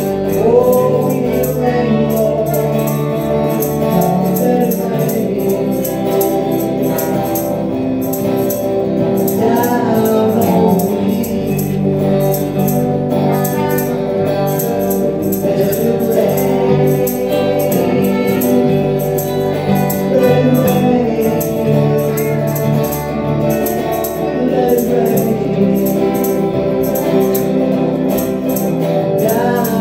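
Live gospel worship music: a woman singing over electric guitar and keyboard, with percussion keeping a steady beat.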